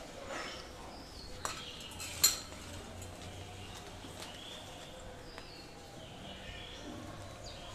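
Wire whisk scraping and clinking against a stainless steel bowl as water is stirred into dry gram flour, with a few sharp metal clinks, the loudest about two seconds in.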